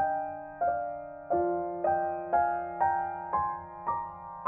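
Gentle background piano music: notes struck about twice a second, each one fading, with the melody stepping upward in the second half.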